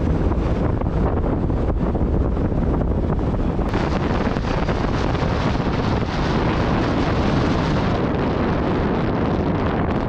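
Road and wind noise of a moving car: a steady low rumble with a hiss over it, and the hiss turns brighter about four seconds in.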